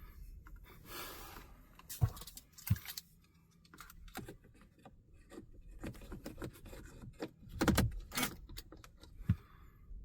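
A scattered run of light clicks, knocks and rustles. Sharper knocks come about two seconds in, again just before three seconds, in a cluster near eight seconds and once more just after nine, over a low rumble.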